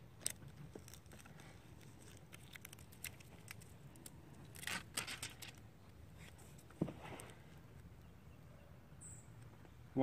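Faint handling sounds of self-adhesive Velcro strips being peeled from their protective backing and pressed onto plastic rails: scattered light clicks and rustles, a short crackle about five seconds in and a single knock just before seven seconds.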